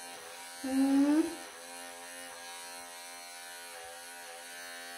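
Wahl professional pet clippers running with a steady, even buzz as they shave through a Persian cat's thick coat. About a second in, a short vocal sound rising in pitch stands out briefly above the buzz.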